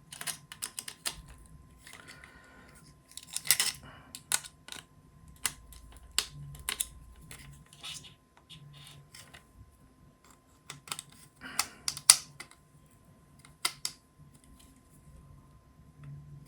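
Irregular small clicks and taps of a screwdriver tightening screws and nuts through a robot's chassis plates, with parts being handled; a few louder clicks come in clusters, about three and a half seconds in and again around twelve seconds.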